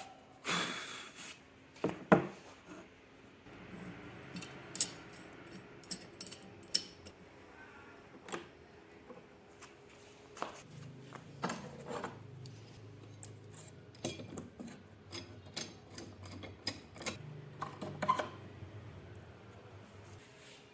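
Scattered sharp clicks, taps and light clinks, as of small tools or parts being handled, with a sharp knock just after 2 seconds and another near 5 seconds, over a faint low hum.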